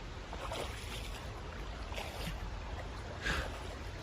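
Creek water running steadily, with a few faint clicks and one brief, louder burst of noise a little over three seconds in.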